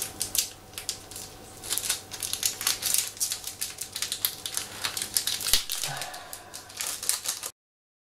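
Small clear plastic parts bag crinkling and rustling as it is handled and opened by hand, in irregular crackly rustles and clicks. The sound cuts off suddenly near the end.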